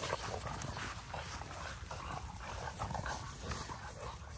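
A litter of American bully puppies scuffling with an adult dog, letting out many short whimpers and yelps as they bite at him.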